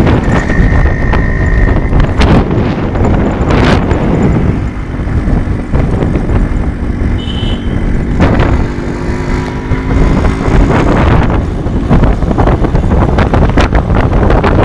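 Wind buffeting the microphone of a moving motorcycle, with its engine running underneath.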